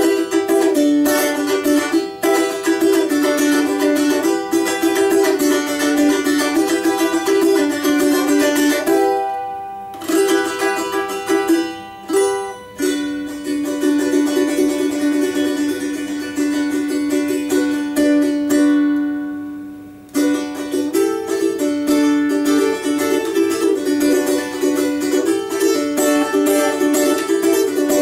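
Four-string balalaika with a doubled first string, tuned to open D major, strummed fast in changing chords. About halfway through, one chord is held as a tremolo and fades away before the strumming starts up again.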